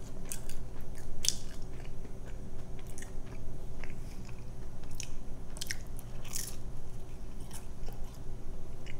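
Close-up crunchy bites and chewing of crisp pizza crust, sharp crackly crunches coming irregularly about once a second.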